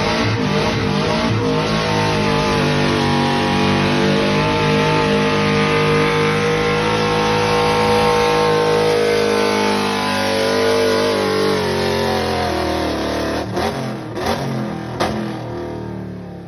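The tuned gasoline V8 of a 2009 Chevrolet Silverado 2500HD is held at high revs under full load, pulling a weight sled, its pitch slowly climbing. About eleven seconds in it lets off and the engine note falls away, followed by a few sharp knocks.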